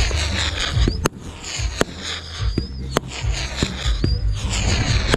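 Fireworks going off: dense crackling and fizzing broken by several sharp bangs, the loudest about a second in.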